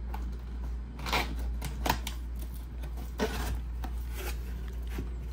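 Cardboard box being opened by hand: the lid and flaps scrape and rustle in a few short strokes, about one, two, three and four seconds in.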